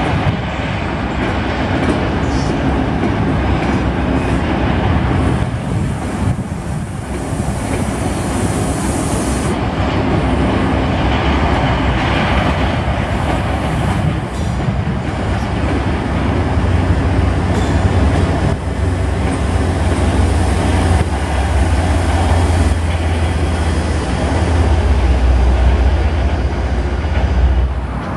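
MBTA commuter rail train passing below, its coaches' steel wheels rolling steadily over the track. A deep low rumble builds through the second half and is loudest near the end.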